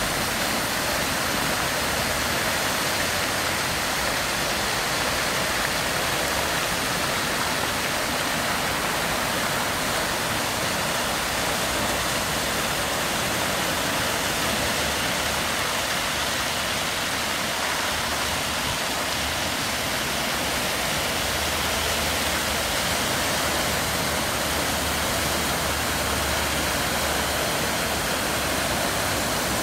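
Illuminated fountain's tall jets and arching side jets spraying and splashing down into the basin: a steady rush of falling water.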